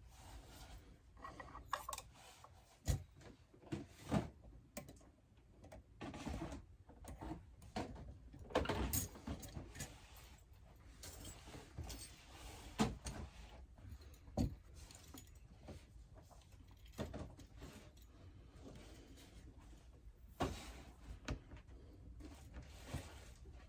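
Irregular light clicks, taps and clatters of small metal tools and clock parts being handled on a workbench.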